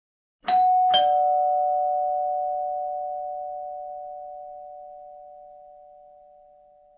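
Two-note ding-dong doorbell chime: a higher tone struck about half a second in, then a lower one half a second later, both ringing on and fading slowly over several seconds.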